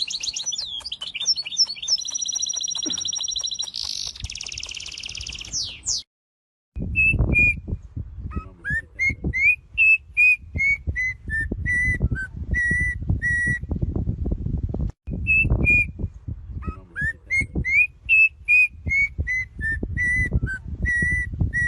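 Birds singing: for about six seconds a dense run of fast trills and whistles, then after a short break a phrase of clear whistled notes, rising and falling, that plays twice over. Under the whistled phrase runs a loud, uneven low rumble.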